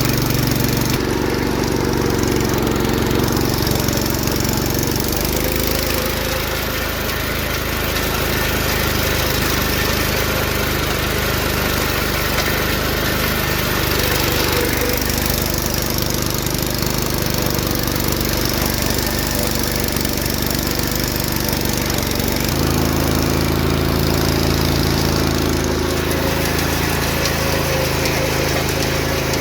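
Single-cylinder engine of a 1964 John Deere 110 round-fender garden tractor running steadily under load while it drives a tiller through the soil. Its pitch shifts several times as engine speed and load change.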